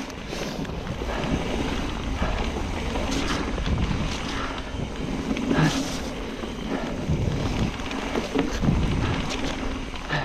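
Wind buffeting the camera microphone while a mountain bike is ridden along a wet trail, with tyre and trail noise and a few scattered knocks from the bike.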